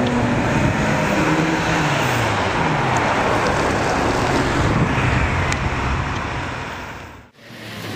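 Ferrari sports cars driving past one after another at close range, engines running loud with their pitch rising and falling as they rev and pass, over road noise. The sound fades away and returns near the end.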